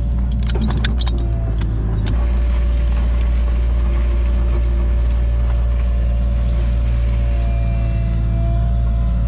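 Cat 303.5 mini excavator's diesel engine running steadily under load while it digs a trench, with a steady hydraulic whine over the engine drone. A few sharp clicks and knocks sound in the first two seconds, and the drone steps up slightly about two seconds in.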